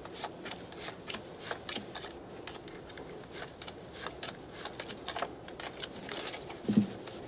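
Playing cards being shuffled and handled by hand: a quick, irregular run of crisp card snaps and clicks. There is a single dull thump near the end.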